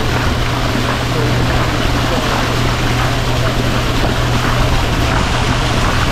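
A boat's motor running steadily with a low, even hum, under a wash of wind and water noise.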